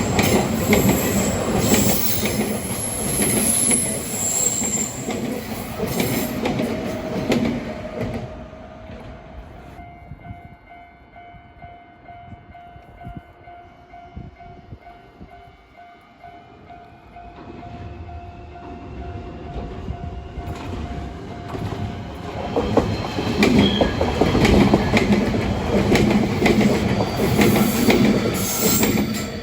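Nankai Main Line electric trains running over rail joints at a level crossing with a clattering rumble. One train passes and fades, then after a quieter stretch of about ten seconds, with a steady tone carrying through it, a second train passes near the end.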